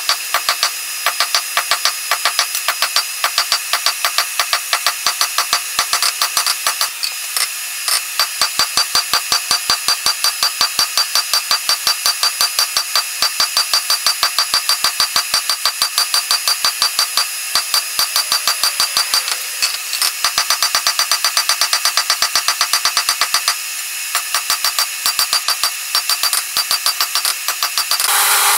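Hand hammer striking a hot half-inch steel bar on an anvil in a fast, steady rhythm, about three to four blows a second, with the anvil ringing under the blows. A few short pauses break the hammering.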